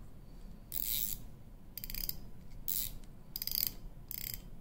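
Drag of a Shimano Stradic FL C3000HG spinning reel clicking as the spool and front drag are twisted by hand: five short ratcheting bursts, each a fraction of a second long, about a second apart.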